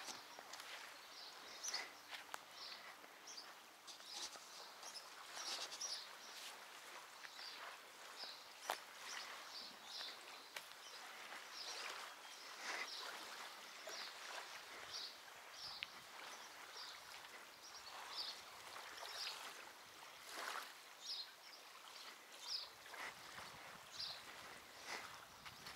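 Faint outdoor ambience: small birds chirping on and off, short high chirps every second or so, over a soft, even hiss.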